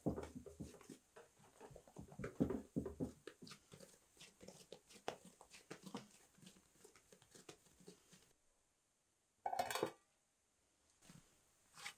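Bread dough being handled in a wooden dough trough: soft squishing and dull thuds as floured dough balls are lifted, shaped and set down, loudest in the first few seconds. Near the end, after a brief silence, comes one short, louder noise.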